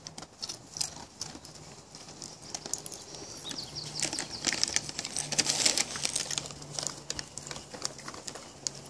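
A foil-and-plastic dog-treat bag crinkling as it is handled, a run of irregular rustles and crackles that is busiest in the middle.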